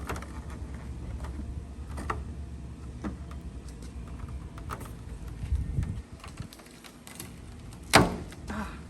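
Handling noises of an aftermarket trunk spoiler being pried off its 3M adhesive tape: scattered small clicks and rustles over a low rumble, with one sharp knock about eight seconds in.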